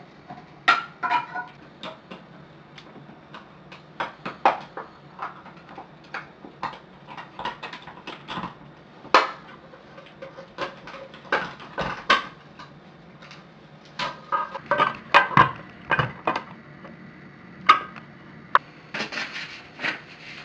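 Irregular light clicks and clinks of small hard objects being handled, some with a short ringing tone, and a rustle of a large paper sheet near the end.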